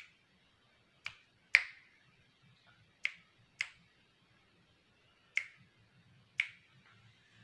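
Seven sharp finger snaps at uneven spacing, several in pairs about half a second apart; the loudest comes about one and a half seconds in.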